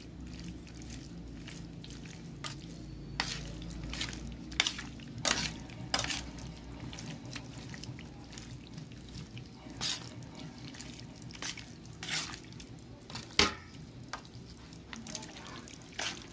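Metal tongs tossing wet, seasoned raw chicken proventriculus (proben) in a stainless steel tray: irregular clicks and scrapes of metal on metal among squishy sounds of the meat, over a steady low hum.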